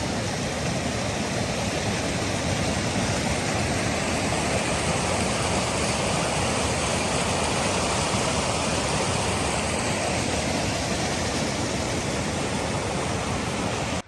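Steady rush of a mountain stream's running water, an even loud noise that cuts off suddenly at the end.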